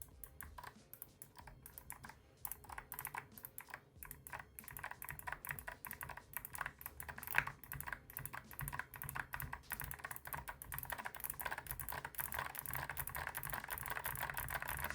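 Typing on Gateron Melodic clicky mechanical switches in an AK-650 keyboard with thick PBT keycaps: a rapid stream of sharp clicks. After a brief pause a couple of seconds in, the typing grows faster and denser toward the end.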